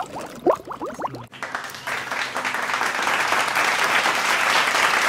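Water gurgling and bubbling in short rising blips for about a second, then, after a sudden change, a steady rushing, splashing hiss of churned water.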